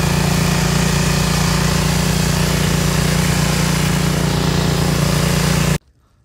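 An engine running steadily with a strong low hum, cutting off abruptly near the end.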